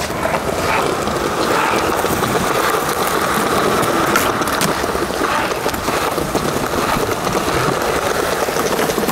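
Skateboard wheels rolling over smooth concrete: a steady rolling noise, with a few light clicks and knocks from the board.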